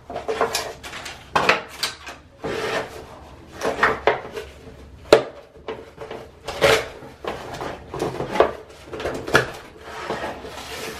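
A wooden organizer tray and its small bins being handled on a countertop: irregular knocks, clacks and scrapes as the bins are lifted out, slid and set back into the tray.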